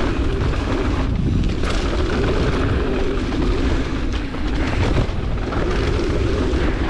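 Mountain bike descending a dirt bike-park trail: steady wind buffeting on the microphone over tyre rumble, with a few sharp knocks from bumps.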